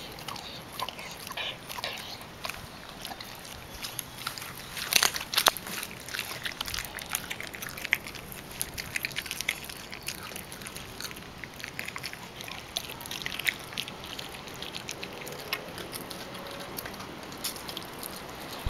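A dog chewing a raw chicken leg: wet chewing with many short crunching clicks of teeth on meat and bone, a loud flurry of them about five seconds in.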